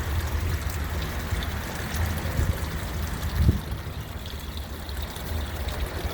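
Water trickling and splashing steadily into a koi pond, over a steady low rumble, with a brief knock about three and a half seconds in.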